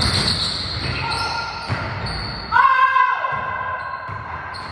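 Basketball being dribbled on a hardwood gym floor, with sneakers squeaking on the boards. The loudest sound is one long squeak about two and a half seconds in.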